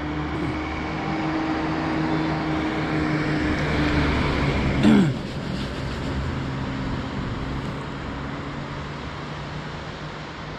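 A motor vehicle approaching and passing close by. Its engine note grows louder, peaks about halfway with a sharp drop in pitch as it goes past, then settles back into a steady rumble.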